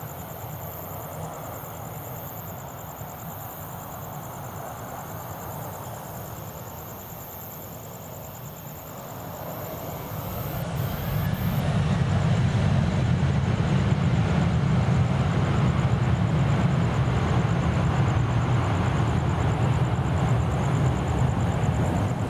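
Jet engines of a Boeing 737 airliner spooling up for takeoff: a steady jet noise for the first several seconds, then about ten seconds in the engines throttle up with a rising whine into a loud, low rumble of takeoff thrust that holds to the end.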